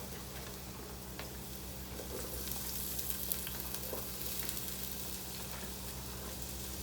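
Onions and bell peppers sizzling as they sauté in a skillet, a steady hiss that grows a little louder about two seconds in.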